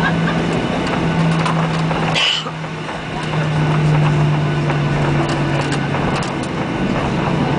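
Cabin noise inside a Boeing 737-800 taxiing: the CFM56 jet engines hum steadily at low thrust, with a brief hiss about two seconds in.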